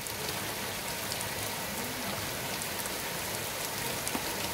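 Heavy rain falling steadily: an even hiss of a downpour with scattered sharp drop ticks.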